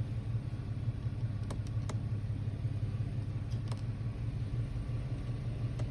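Car engine idling, a steady low hum heard from inside the cabin, with a few faint clicks.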